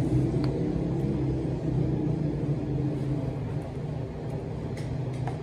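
Steady low hum, with a few faint clicks near the end.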